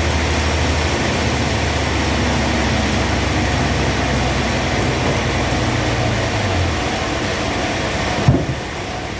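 Sawmill machinery running steadily with a loud, even noise and a low engine hum; the hum dies away near the end, followed by a single knock.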